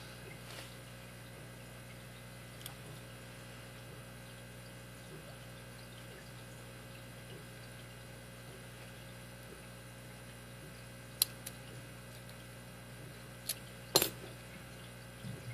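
Lock pick and tension wrench working the pins of a Master Lock 160 padlock during single-pin picking: faint scattered ticks, then three sharper clicks near the end, over a steady low hum.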